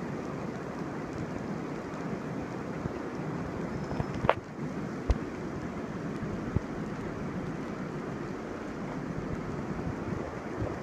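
Heavy rain pouring down onto a flooded asphalt parking lot, a steady dense hiss. A few short sharp clicks come around the middle.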